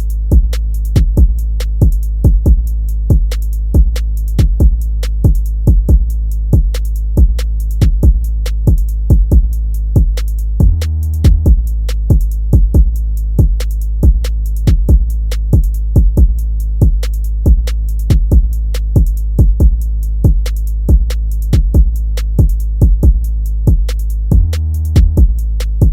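Hip hop instrumental beat: a drum machine pattern with hi-hat ticks over a steady deep bass, shifting briefly about 11 seconds in and again near the end.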